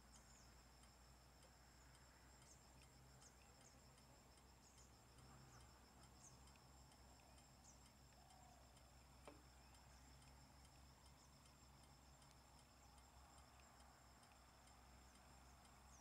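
Near silence with a faint, steady high-pitched insect chirring and faint ticking; a single faint click about nine seconds in.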